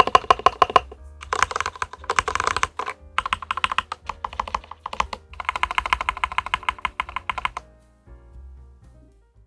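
Fast typing on a Leopold FC660MBT mechanical keyboard, a rapid run of key clicks with brief breaks, stopping about seven and a half seconds in. Background music underneath.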